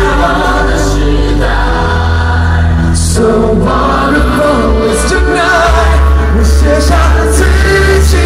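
Male pop vocal group singing live into microphones, amplified, over a loud bass-heavy musical accompaniment.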